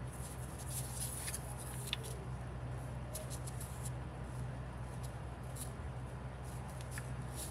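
Faint scratching and light ticks of a thin wooden stick drawing lines into a small piece of soft clay, over a steady low hum.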